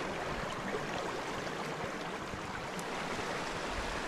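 Small, shallow brook trout stream running over rocks, a steady rush of water.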